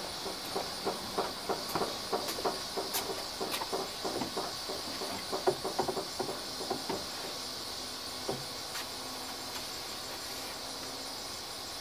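Footsteps on wooden deck boards, a few irregular steps a second, stopping about seven or eight seconds in; a steady high hiss runs underneath.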